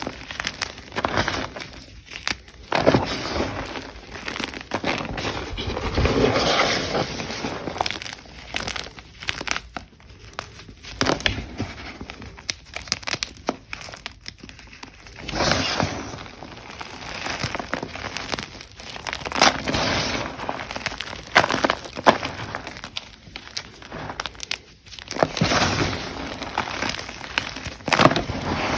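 Blocks of Ader gym chalk being crushed and crumbled, with irregular bursts of crunching and crumbling throughout.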